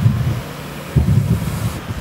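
Ford police SUVs driving slowly past on grass with a steady low engine rumble, while wind buffets the microphone in two gusts, one right at the start and a longer one about a second in.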